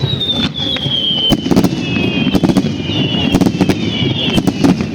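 Fireworks going off: a rapid run of sharp bangs and crackles, with several high whistles sliding down in pitch over them.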